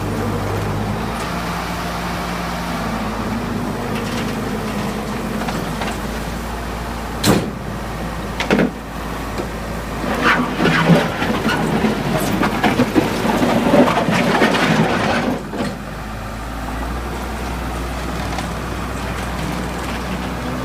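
2007 Case 450CT compact track loader running under demonstration, its diesel engine holding a steady note with a few small pitch steps. Two sharp metallic clanks come about seven and eight and a half seconds in. Then about five seconds of clattering and rattling from the machine as it works, before the engine settles back to a steady run.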